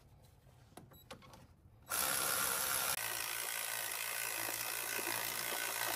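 Handheld power tool running steadily for about four seconds, starting abruptly about two seconds in, as it drives the top mounting bolt of a new alternator home until it is tight.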